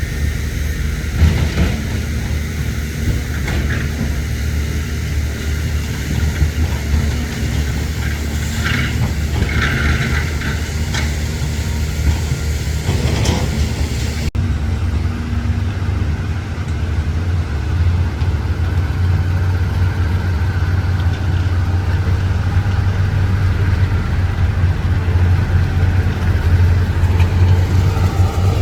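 Heavy diesel earthmoving machinery running, with a few short higher-pitched sounds in the first half. About halfway there is an abrupt cut to a steady low engine drone.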